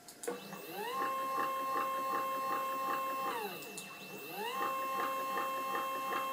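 Stepper motors driving the CNC-converted Proxxon KT150 cross table through its leadscrews, whining in pitch like a printer. The pitch rises as the table speeds up, holds steady, then falls as it slows to a stop. A second run starts about four seconds in.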